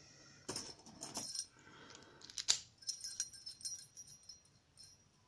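Lock pick and tension wrench working the pins of a Gege six-pin euro cylinder lock: small, scattered metallic clicks, scrapes and tinkles, with one sharper click about two and a half seconds in.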